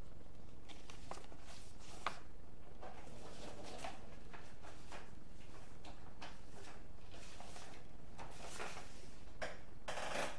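Paper rustling and crinkling as a fold-out CD lyric booklet is pulled out and unfolded by hand, with a sharp click about two seconds in and a louder rustle near the end.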